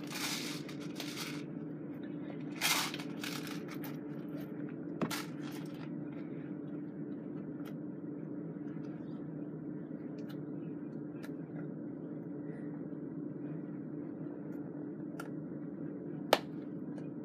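Airsoft gear and clothing being handled: a few short bursts of rustling in the first several seconds, then scattered light clicks and one sharp click near the end, over a steady low hum.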